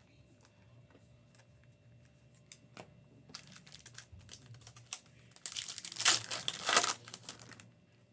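Light clicks and taps of trading cards being handled, then about five and a half seconds in a loud crinkling and tearing as a plastic card-pack wrapper is ripped open, lasting about two seconds.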